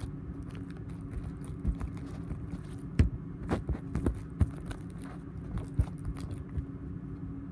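Homemade pop-it fidget being pressed: irregular soft pops and clicks as its bubbles are pushed in, the sharpest about three seconds in, over a steady low hum. Only some of its bubbles pop.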